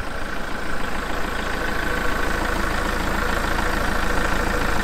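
Kubota MX5800 tractor's diesel engine idling steadily with the hood up, a squirrel nest packed on top of the engine; the owner had found it not running well.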